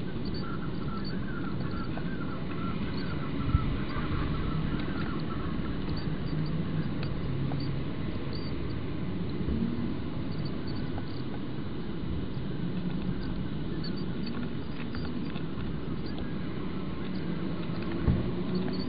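Sound from a common kestrel nest box, sped up three times: a steady low rumble of background noise with faint, thin peeping from the chicks while the adult feeds them. Two sharp knocks stand out, one a few seconds in and one near the end.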